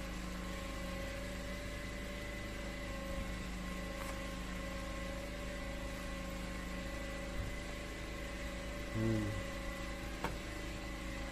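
Steady machine hum with several fixed tones running evenly throughout, over a wok of stew being stirred. A metal spatula clacks once against the pan about ten seconds in.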